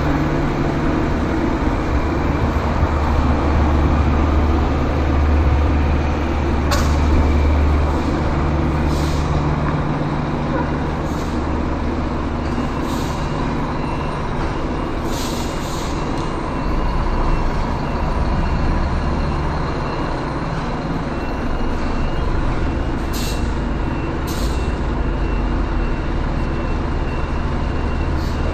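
Scania truck's diesel engine running at low revs while maneuvering a semi-trailer, its drone swelling and easing as the throttle changes. Short hisses of compressed air come several times.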